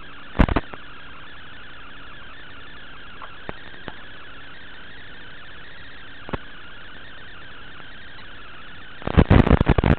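Steady static hiss from an analog FPV video receiver, with loud crackling bursts about half a second in and again over the last second.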